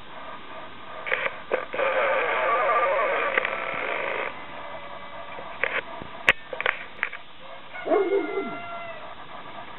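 Dogs barking several times, with a short falling call about eight seconds in. A loud steady rushing noise runs from about two to four seconds in.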